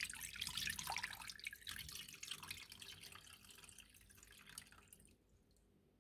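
Water poured from a glass bowl into a wide pan over a slab of raw pork belly, splashing and trickling, thinning out and stopping about five seconds in.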